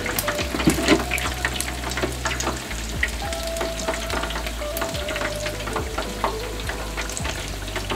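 Chicken wings deep-frying in hot oil in an electric deep fryer: a steady sizzle full of small crackles and pops, as a wire skimmer stirs the wings and lifts them out, nearly done and crispy.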